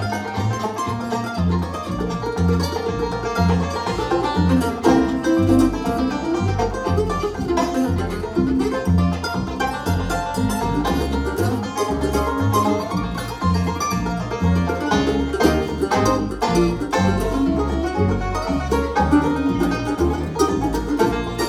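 Instrumental string-band music: a plucked lead over a steady bass line.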